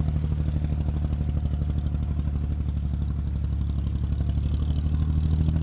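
Diesel engine of a wooden abra water taxi running steadily underway, a low rapid chugging with a little water splash over it.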